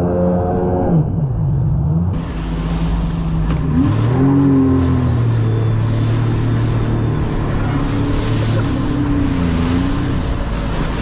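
Sea-Doo jet ski engine running under way, its pitch rising and falling a couple of times with the throttle, over the rush of water spray and wind. The sound changes abruptly about two seconds in.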